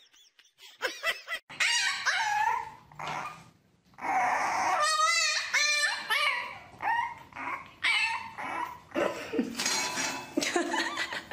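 Dogs whining and yipping in a string of short pitched cries that rise and fall, with a brief gap about three and a half seconds in.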